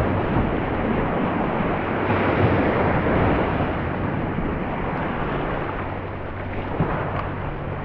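Ocean surf washing at the jetty, swelling and easing, with wind buffeting the microphone. A faint, steady low hum runs underneath.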